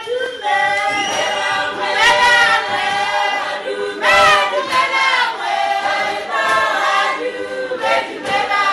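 A choir singing: several voices together in harmony, with held, gliding notes, as soundtrack music.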